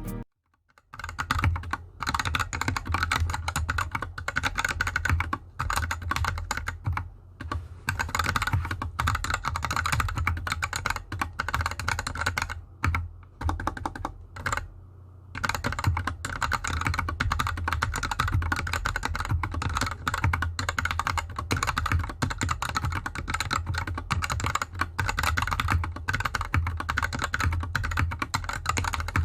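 Steady, rapid typing on a GK64X 60% hot-swap mechanical keyboard with unlubed Gateron Yellow linear switches and DSA keycaps, the keyboard sitting directly on a bare desk with no mat. There are a few short pauses in the typing, the longest just before halfway.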